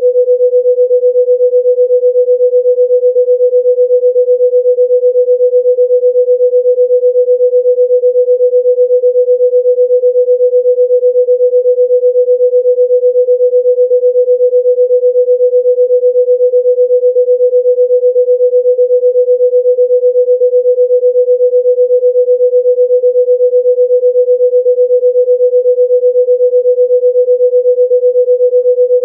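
A single steady electronic pure tone, somewhat low in pitch, held at one pitch and level throughout; a 'healing frequency' tone played for relaxation.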